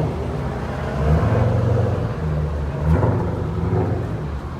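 Car engines running with a low rumble, getting louder about a second in and again near three seconds.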